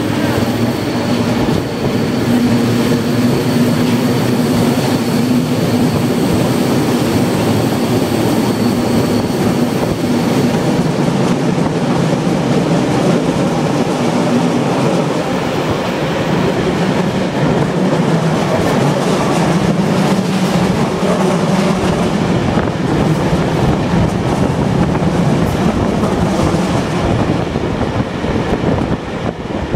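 Old East German passenger coaches running along the track, heard from an open coach window: a steady rumble of wheels on rails, dense with small clicks and rattles. A thin high squeal and a low hum sound over it for roughly the first ten seconds.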